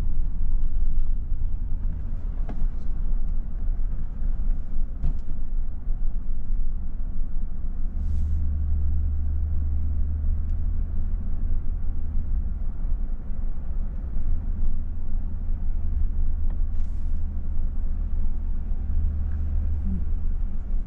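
Car interior road noise while driving slowly: a steady low rumble of engine and tyres, growing a little heavier about eight seconds in.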